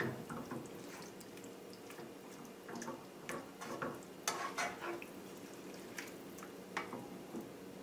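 Tomato and spinach sauce in a skillet over low heat, with scattered faint pops and clicks as it simmers and a spatula stirs it, over a faint steady hum.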